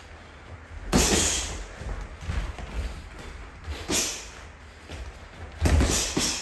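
Boxing sparring: three loud bursts of gloved punches and sharp breaths, about a second in, near four seconds and near six seconds.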